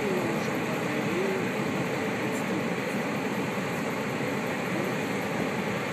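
Steady, even rushing noise of a two-section SPX cooling tower running, its fans and falling water.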